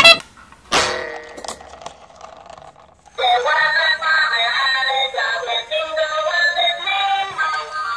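A sharp clack right at the start and another just under a second in, then a battery-powered light-up toy train's built-in sound chip playing an electronic melody from about three seconds in, thin and without bass.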